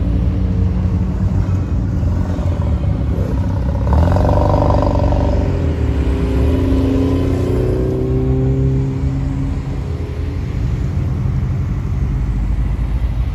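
Cars pulling away one after another past the listener, led by a Mazda RX-7: each engine rises in pitch as it accelerates, over a steady low rumble. The loudest run-up comes about four seconds in.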